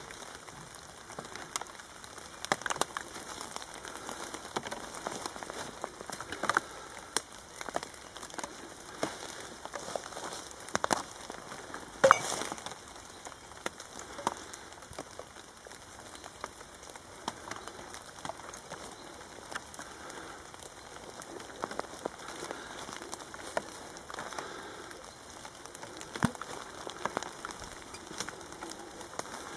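Light, irregular pattering and crackling of rain drops on plastic carrier bags and fallen leaves, with one sharper click about twelve seconds in.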